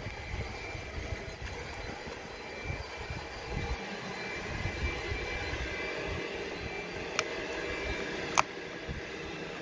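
Steady outdoor background rumble and hiss, with two sharp clicks about seven and eight and a half seconds in, the second louder.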